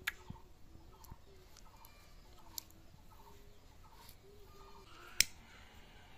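Chickens clucking softly over and over, about twice a second, with a few sharp clicks, the loudest about five seconds in.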